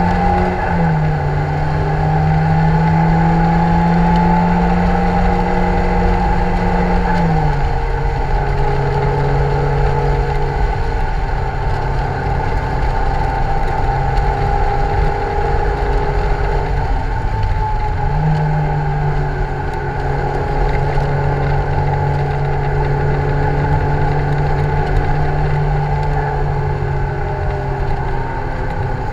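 Lotus Elise 111R's Toyota 2ZZ-GE 1.8-litre four-cylinder (VVTL-i) pulling on track, heard from the open cockpit. Its note rises and falls with throttle and gear changes, with a drop about 7 seconds in and a dip around 17 seconds before it climbs again. Steady road and wind noise runs under it.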